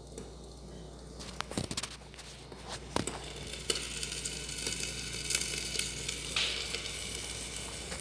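Omelette sizzling steadily in a pan covered with a glass lid. A few sharp knocks fall in the first half.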